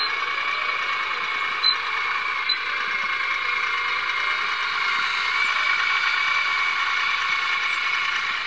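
Scale RC model O&K L55 wheel loader's drivetrain running, a steady high whine that wavers slightly in pitch as it drives through snow, with two short clicks about one and a half and two and a half seconds in.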